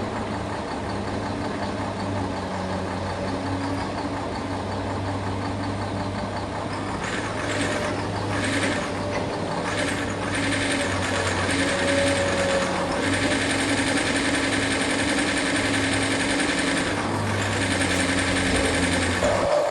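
Radio-controlled model construction machines working: a steady hum of small electric motors and gearboxes, rising into louder whirring several times in the middle and again near the end.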